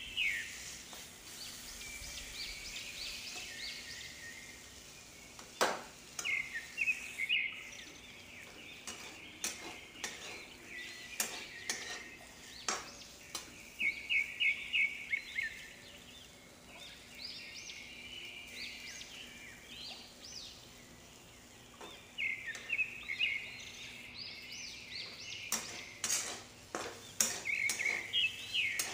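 Flat metal spatula stirring and scraping vegetables around a kadhai, in clusters of quick scrapes with occasional sharp knocks of the spatula against the pan, over a low frying sizzle.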